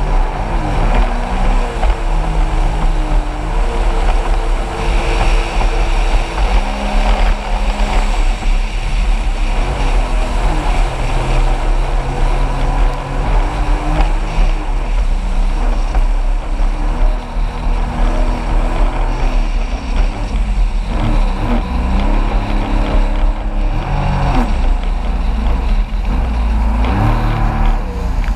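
Jet ski engine running hard, its pitch rising and falling repeatedly as the throttle is worked, over a constant rush of wind and water against the craft.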